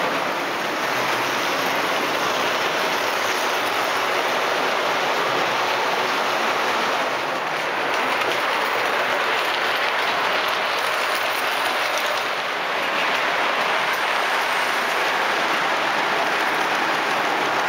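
O gauge model train running on the layout: a steady rolling rumble of its wheels on the rails, with small dips in level a few times.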